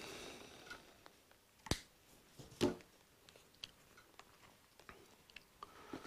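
Pliers snipping through a copper wire with one sharp click about two seconds in, followed by a softer click and a few faint ticks of small parts being handled.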